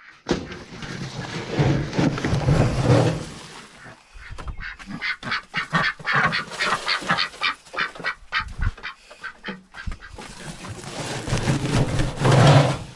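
Ducks quacking, with a quick run of repeated quacks in the middle.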